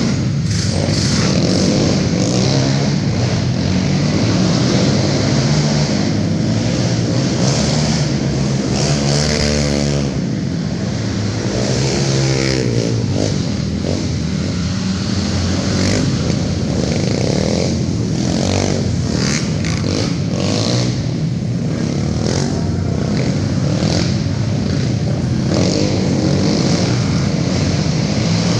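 Racing quad engines running hard and continuously, the pitch rising and falling as the throttle opens and shuts through the turns.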